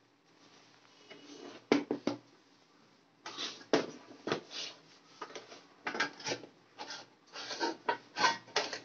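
Sheet-metal top cover of a Dahua HDCVI DVR being lifted and slid off its steel chassis: clattering metal knocks and short scrapes. There are two sharp knocks a little under two seconds in, then a busy run of knocks and rubs through the rest.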